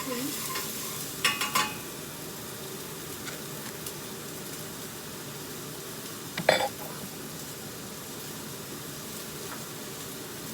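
Chopped onion, ginger and garlic sizzling steadily in hot oil in a pot while being stirred, with a few sharp clinks of the utensil against the pot a little over a second in and one louder knock about six and a half seconds in.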